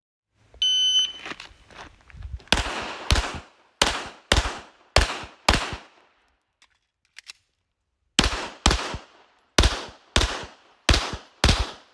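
Pistol shot timer beeps once, then a pistol fires two quick strings of about six shots each, separated by a pause of about two seconds.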